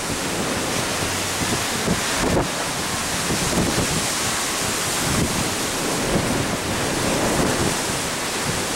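Storm wind buffeting the microphone over the rush of a rough sea, a steady noise with gusts in the low end.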